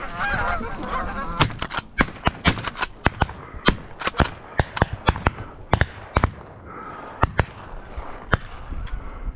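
Flock of Canada geese honking overhead, then a rapid volley of shotgun shots from several hunters, about twenty shots over some seven seconds, with goose calls still heard between them.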